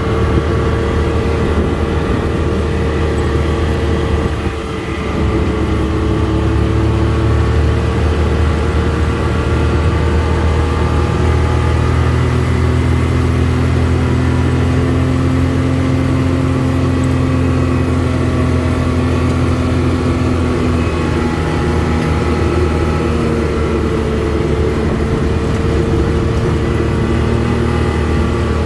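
Car engine and road noise heard from inside the cabin while driving: a steady drone whose pitch drifts gently as the engine speed changes, briefly dropping in level about four and a half seconds in.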